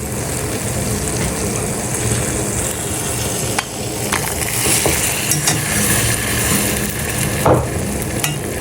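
Samosas deep-frying in hot oil over medium heat: a steady sizzle, with a few light clicks scattered through it.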